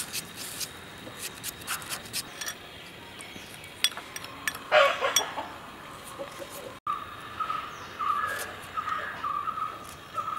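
Small knife slicing vegetables held against the thumb: quick crisp clicks in the first couple of seconds. About five seconds in there is one loud short call, and in the latter part a bird chirps a run of short notes over and over.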